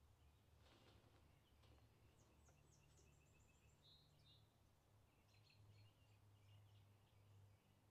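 Near silence: faint outdoor ambience with a low hum, and small birds chirping and trilling faintly, mostly around the middle and again near the end.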